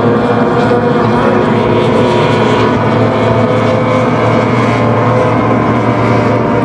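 Engines of several racing boats running together, a loud, steady, overlapping drone.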